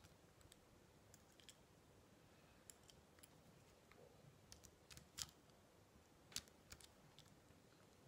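Faint, scattered small clicks and ticks of a precision screwdriver turning a small screw back into the metal body of a Comandante hand coffee grinder. The two sharpest clicks come about five and six and a half seconds in.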